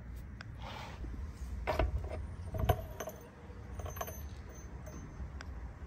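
Steel gears and synchronizer parts of a T56 six-speed manual transmission clinking against each other and the mainshaft as they are worked off by hand: a few sharp metallic clinks with a brief ring, the loudest about halfway through.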